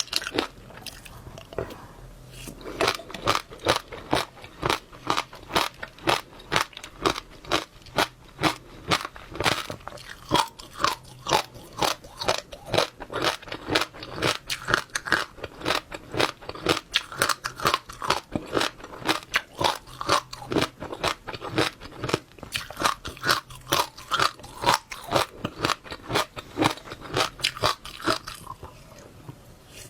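Close-miked chewing of wet passionfruit seeds, the seeds cracking between the teeth in sharp crunches several times a second. There is a short pause about a second in and another near the end.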